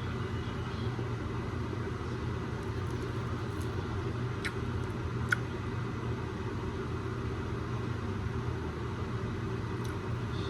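Automatic exhaust fan running with a steady, even hum, switched on by the heat and steam of the cooking. A few faint clicks sound over it around the middle.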